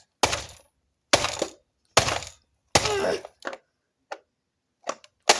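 Screwdriver being stabbed into the plastic casing of an Emerson iPod docking radio: four hard cracking strikes under a second apart, then a few lighter knocks and another hard strike near the end.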